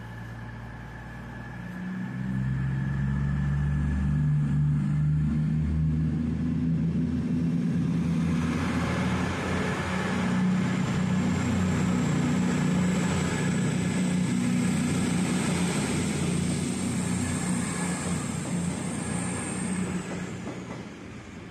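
CrossCountry Voyager diesel multiple unit's underfloor diesel engines running hard with a low throb as the train moves through the station, joined by wheel and rail noise. A thin high whine rides over it and falls away near the end.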